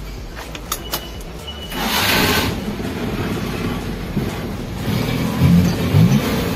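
Car engine with a custom steel-pipe exhaust starting about two seconds in and then running, with a few louder pulses of throttle near the end.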